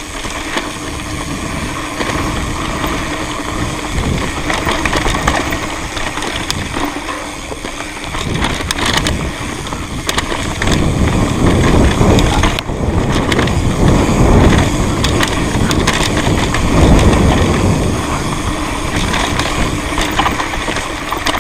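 Mountain bike rolling fast down a rough trail: tyres crunching over dirt and stones, wind rumbling on the microphone, and the ticking buzz of a Speedone Torpedo rear hub's 8-pawl freehub while coasting. The rumble and crunching grow rougher and louder from about halfway through.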